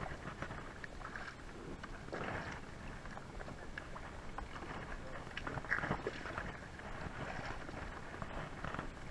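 Faint wind and water noise around a small fishing boat on a lake, with scattered small clicks and knocks.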